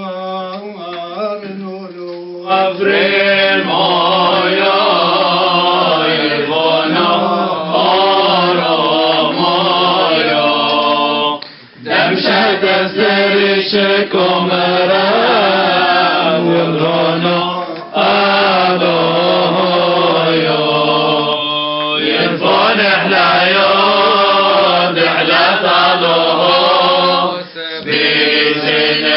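Male voices chanting a Syriac Orthodox hymn in long sung phrases with short breaks between them. The singing becomes much louder and fuller about two seconds in.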